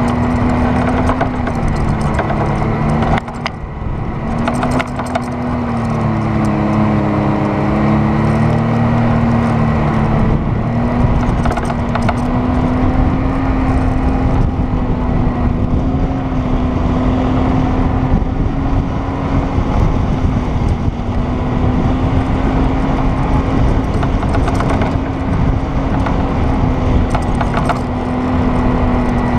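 Off-road vehicle's engine running under steady throttle while driving over sand: one steady drone that dips briefly about three seconds in and wavers in pitch a few seconds later, over a constant rushing noise.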